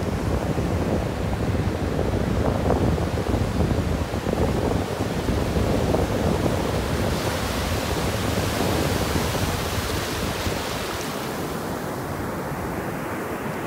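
Ocean surf washing onto a sandy beach, a steady rush, with wind buffeting the microphone. The hiss brightens about halfway through and dies back near the end.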